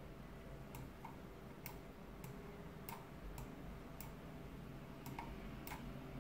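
Faint, irregular clicks of a computer mouse, about ten spread over a few seconds, over a low steady hum.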